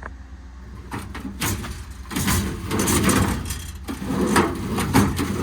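Metal service-body tool drawers being pulled out and pushed back on their slides, rattling and scraping with sharp clicks, louder from about two seconds in. One of them slides stiffly, the sign of drawer slides wanting lubrication.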